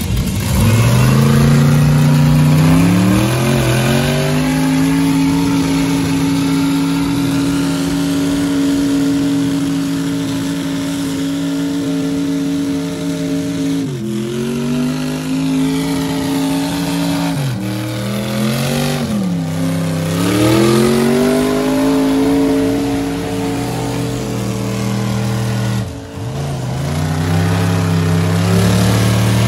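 Mega truck engine revved hard and held at high revs for long stretches under load in a tug-of-war pull. The pitch climbs steeply about a second in, then dips and climbs back around the middle, again about two-thirds in, and briefly near the end.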